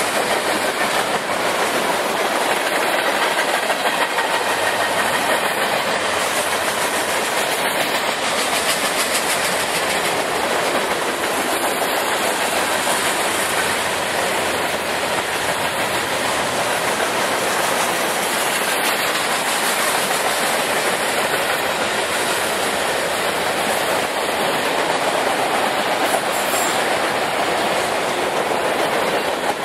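A train's cars rolling past close by: a steady, loud rush of wheel-on-rail noise.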